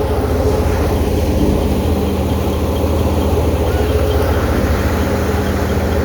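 Tractor's diesel engine running steadily at a constant speed, with a fast, even low throb.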